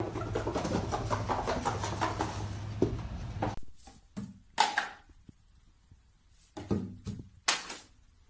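A steady low hum with scattered small clicks and rustling runs for the first three and a half seconds, then stops abruptly. After that, a cat pawing plastic toiletry bottles on a tiled shelf knocks them over, making a few short clattering knocks, the last near the end.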